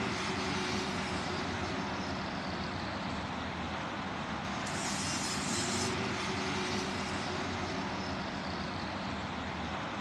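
Steady rush of road traffic from an expressway: a continuous wash of engine and tyre noise with no single vehicle standing out.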